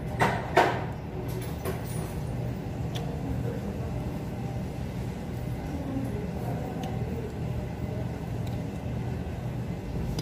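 Steady low hum of room background noise, with two sharp knocks close together in the first second and a few faint ticks later.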